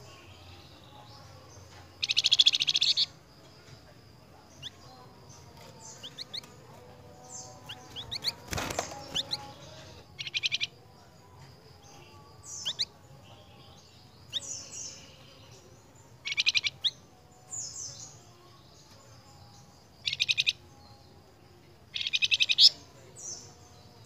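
Song of a caged flamboyan songbird: loud rapid rattling phrases about a second long, repeated every few seconds, with thin whistled notes sliding up or down between them. One brief thump about eight and a half seconds in.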